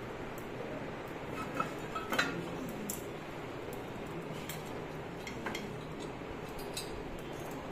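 Scattered light clinks and taps of metal as hands work at a brass idol standing in a metal plate, a few short ticks with the most near two seconds in, over a steady low background.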